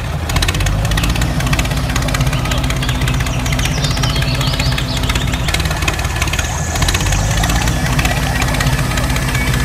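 Tractor engine running steadily with a rapid, even knocking clatter, like a diesel at idle.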